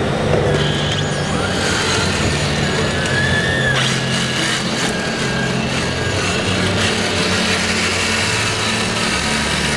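Radio-controlled scale wheel loader at work: a thin electric-motor whine from the model that rises and falls about three to four seconds in. It sits over the steady din of a crowded hall.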